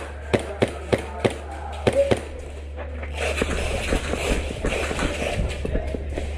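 A run of sharp clicks, about three a second, through the first second or so, another around two seconds in, then scuffling noise with many small scattered clicks, over a steady low hum.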